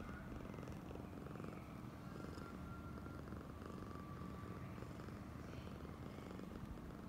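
A domestic cat purring steadily.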